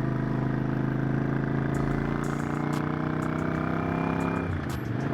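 Motorcycle engine running at steady revs while riding, its note holding one pitch, then dipping briefly near the end before picking up again.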